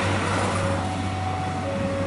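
A passing train's rumble dying down with a steady low hum, along with a few faint held tones.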